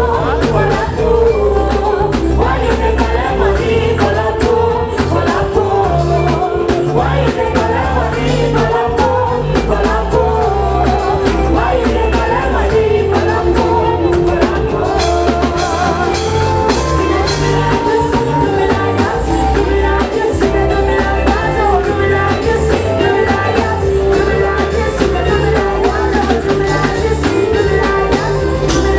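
Loud live music with a steady beat and heavy bass, with singing over it.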